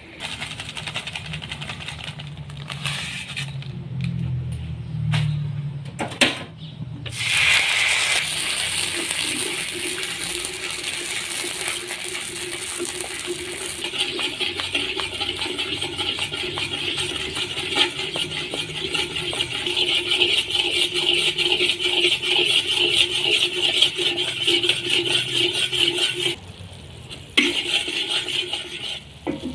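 Brown sugar syrup bubbling and sizzling steadily in a hot wok, with a metal spatula rattling against the pan; a sharp knock comes about six seconds in.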